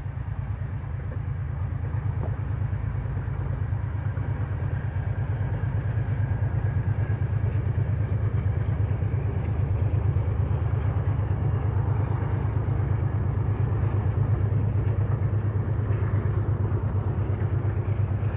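Low, steady engine rumble that slowly grows louder over the first several seconds.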